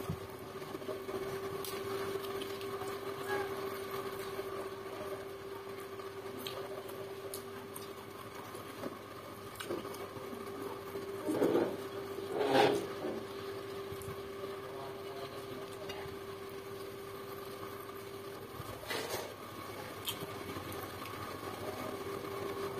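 A steady hum at one constant pitch, like a small motor or appliance, runs under quiet eating sounds: fingers working rice on a plate, chewing, and faint clicks. There are two louder short noises a little past the middle.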